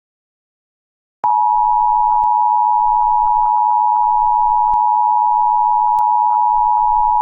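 Emergency alert attention tone: a loud, steady single-pitched tone that starts abruptly about a second in and holds unbroken, with three faint clicks under it.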